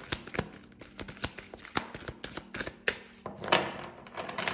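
A tarot deck being shuffled by hand: a quick, irregular run of card clicks and taps, with a longer rustle of cards about three and a half seconds in.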